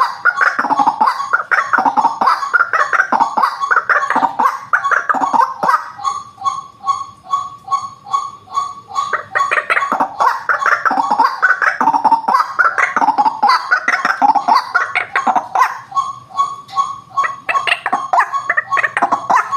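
White-breasted waterhen calling: loud, harsh croaking phrases that alternate with runs of evenly repeated single notes, about three a second, near 6 s in and again near the end.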